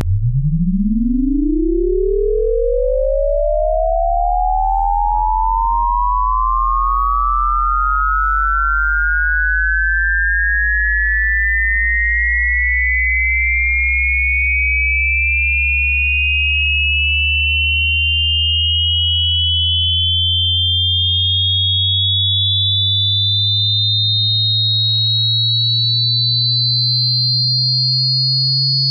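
Electronic sine-wave tone sweeping steadily upward in pitch from a deep hum to a high whistle, climbing fast at first and then more slowly. A fainter low tone rises slowly underneath it.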